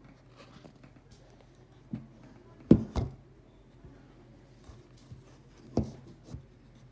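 A few soft knocks and thumps in a quiet small room, five or so. The loudest is a pair about three seconds in.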